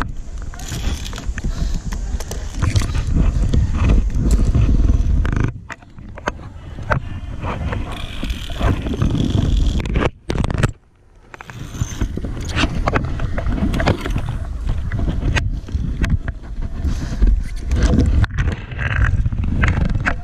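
Low rumble of air and handling noise on a head-mounted camera's microphone, with scraping and clinking of the harness trolley and carabiners against a steel cable. The rumble drops out almost completely twice, briefly.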